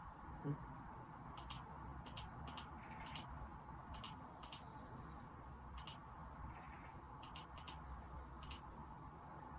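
Sparse clicks of a computer keyboard and mouse through a phone microphone: about ten sharp clicks, many in quick pairs, over a steady low hum. There is one soft low thump about half a second in.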